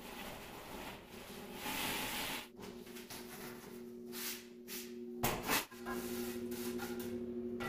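A straight bar and a trowel scraping and rubbing over wet cement mortar as a countertop bed is screeded level, with a sharp knock about five seconds in. Steady low notes of background music come in partway through.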